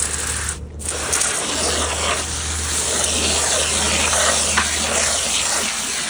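Pistol-grip hose nozzle spraying a jet of water into a plastic 5-gallon pail, filling it to mix bentonite powder. It makes a steady hiss that breaks off briefly a little under a second in, then runs on.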